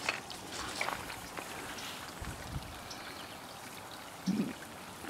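Shallow creek riffle trickling over rocks, a faint steady water sound. A short low sound stands out about four seconds in.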